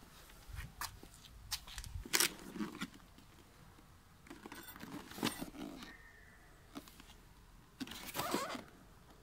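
A cardboard box handled by hand: scattered knocks and scrapes as it is picked up, then longer bouts of rubbing and sliding of hands over the cardboard about five and eight seconds in as it is turned over.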